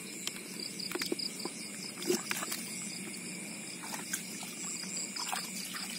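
A night chorus of crickets and other insects: steady high trilling, one part pulsing evenly. Scattered small clicks and splashes of shallow water come through it.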